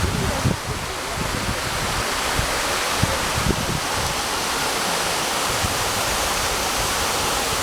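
Waterfall rushing water, a steady loud hiss, with wind buffeting the microphone now and then.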